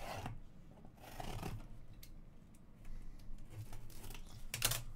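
A small blade slitting the packing tape along a cardboard case's seam: a few short cutting strokes, the loudest near the end.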